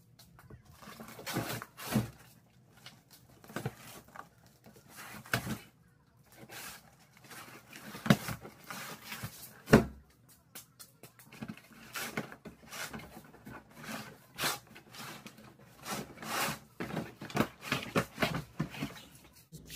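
Cardboard box and boxed garden-cart parts being handled during unpacking: irregular knocks, taps and rustles, with two sharper knocks about 2 seconds and 10 seconds in.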